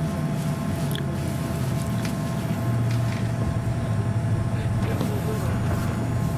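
Steady low drone inside the cabin of a Boeing 787-8 airliner during pushback, with a few even hums above it.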